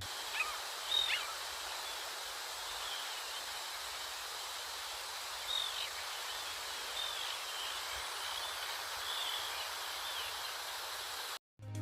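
Small birds giving short chirping calls over a steady outdoor hiss of wind or rustling leaves, the chirps bunched near the start and again through the middle and later part; the sound cuts off abruptly just before the end.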